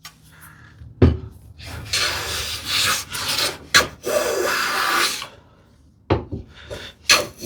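No. 5 hand plane taking test shavings along a wooden board: a knock, then two long hissing strokes of the iron through the wood, with short knocks near the end. The freshly sharpened, just-advanced iron is cutting, which shows the blade is set to take a shaving.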